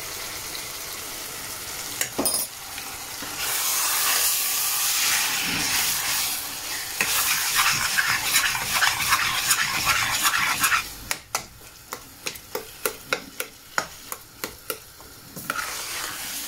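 Minced chicken keema sizzling over high heat in a stainless steel saucepan while a metal spoon stirs it. The sizzle is loudest in the middle. From about eleven seconds in it drops, and the spoon knocks and scrapes against the pan in a quick run, about three times a second.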